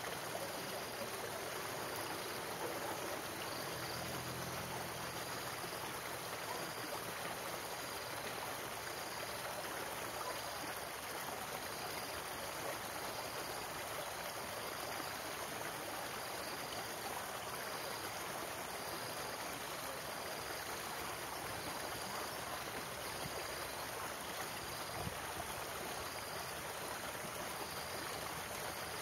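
Steady rushing of a shallow stream pouring out of a culvert and over rocks, with a faint high chirp repeating about once a second.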